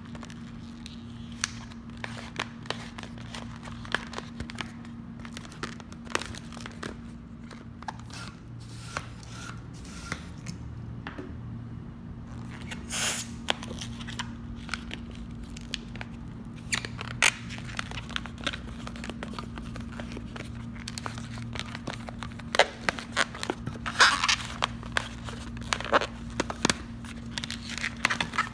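Latex modelling balloons being twisted and handled, giving many short rubbery squeaks, creaks and clicks, with louder clusters about halfway through and again near the end. A steady low hum runs underneath.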